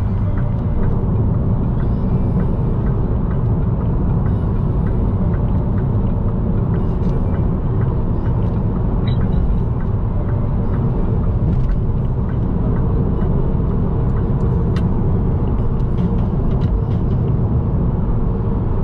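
A car driving along a road: steady low rumble of tyre and road noise with engine hum, unbroken throughout, with a few faint ticks.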